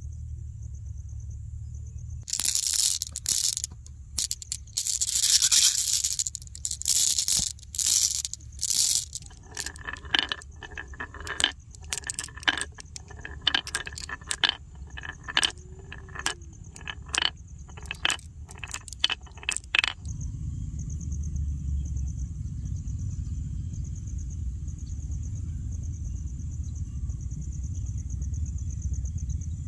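Marbles rolling and clattering down wooden marble-run slopes: a long run of sharp clicks and rattles, some in loud bursts, that stops suddenly about twenty seconds in. After that, only a steady low rumble.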